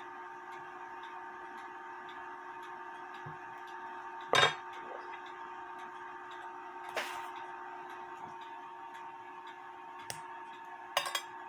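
A few sharp metallic clicks and clinks from work on small metal parts, the loudest about four seconds in, another about seven seconds in and a short cluster near the end, over a steady hum.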